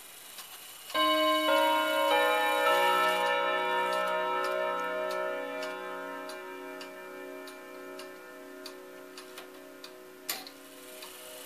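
ODO 36 Art Deco carillon wall clock playing its quarter-hour chime on eight hammers: a quick run of notes about a second in, left to ring and slowly fade, over the steady tick of the movement. A louder click near the end.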